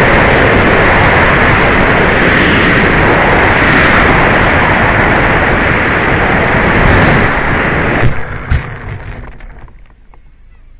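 E-Flite Apprentice electric RC trainer plane heard through its onboard FPV audio: a loud steady rush of air and motor noise with a thin high whine. About 8 seconds in, two sharp knocks half a second apart, typical of the plane touching down, and then the noise dies away.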